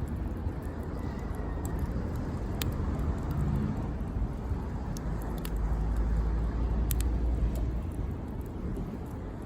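Wood campfire crackling, a few sharp isolated pops over a steady low rumble that swells for a couple of seconds past the middle.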